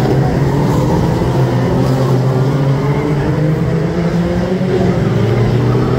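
Several BriSCA F2 stock cars' engines running hard as the cars race past one after another. Their notes overlap and rise and fall gently as they go through the bend.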